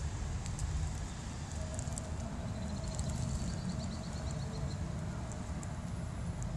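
Steady low outdoor rumble, with scattered faint clicks and a short, faint high trill a little before halfway.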